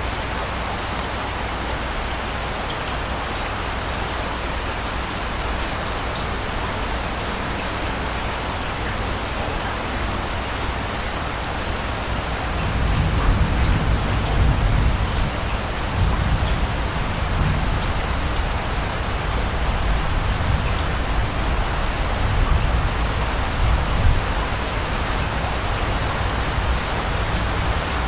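Steady rain falling. About halfway through, a low rumble of distant thunder rolls in and goes on, swelling and easing, almost to the end.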